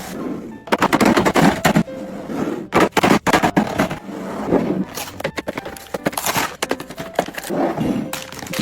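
Rapid clattering and rattling of small hard household items, such as plastic containers and packaging, being handled and sorted. The clatter comes in several bursts about a second long.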